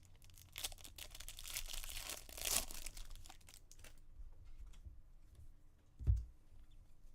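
A trading-card pack wrapper being torn open and crinkled, loudest about two and a half seconds in, then lighter handling noise and a soft thump about six seconds in.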